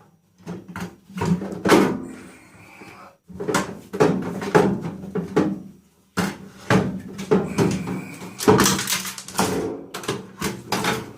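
Scrap metal parts from a stripped microwave clanking and knocking as they are handled and put back into the microwave's metal casing: a run of clatters with short pauses.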